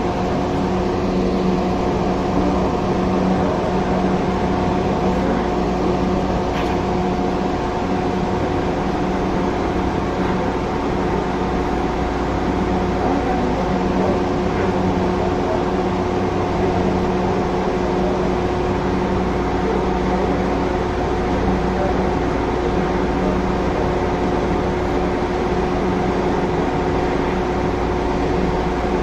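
Steady hum inside the driver's cab of an electric light rail train under way, with a few held tones over a low rumble.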